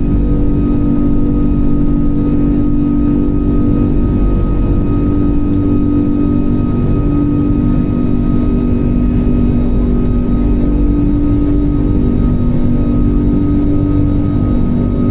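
Steady drone of an Airbus A340-600's Rolls-Royce Trent 500 engines heard inside the cabin in flight, a low rumble with a constant hum and a thin high whine over it.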